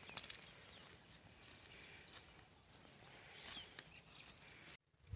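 Near silence: faint outdoor ambience with a few faint, brief bird chirps. The sound cuts out completely for a moment near the end.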